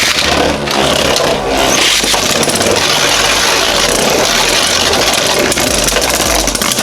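Two Beyblade spinning tops, a 3D-printed Jynx Ouroboros and a Union Spriggan with metal swords, spinning and grinding against each other in a plastic stadium just after launch: a loud, steady, rasping whir with rattling contact.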